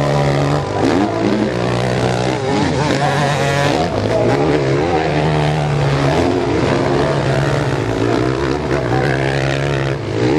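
Motocross dirt bike engines revving hard, several at once, their pitch rising and falling over and over as the riders throttle on and off around the track.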